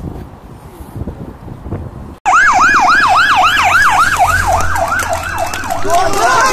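Police motorcycle escort siren cycling up and down in pitch about three times a second, starting abruptly about two seconds in. Near the end a second siren at a different pitch overlaps it.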